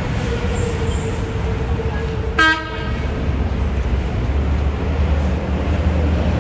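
A New York subway train rumbling steadily across the Manhattan Bridge, with a faint whine sinking slightly in pitch. A short horn blast sounds about two and a half seconds in.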